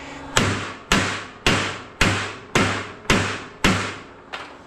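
Hammer blows on a small transformer's welded E-I lamination core, eight strikes at about two a second, each ringing briefly, cracking the weld so the core breaks apart.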